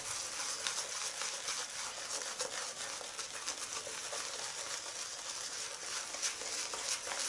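Synthetic shaving brush worked briskly over a lathered face, a steady wet swishing with many tiny crackles as thick shaving-cream lather is built up on the skin.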